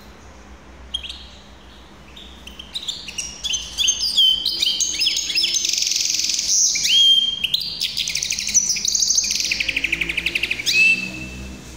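Caged hybrid finch singing: a few scattered chirps, then from about two and a half seconds a fast, continuous run of high twittering notes and rapid trills, ending with a drawn-out note near the end.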